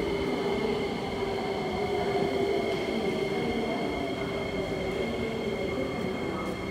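MRT train passing through the station, its electric traction drive giving a steady high whine over running noise, with a lower motor tone that slowly falls in pitch.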